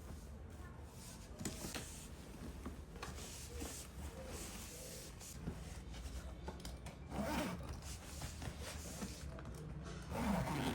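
Intermittent rustling and rubbing sounds, a few short scrapes several seconds apart, the loudest near the end, over a low steady hum.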